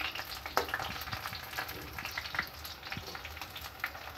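Besan sev frying in hot oil in a steel kadhai: a steady crackling sizzle, with occasional clicks of the metal spoon against the pan as the strands are stirred.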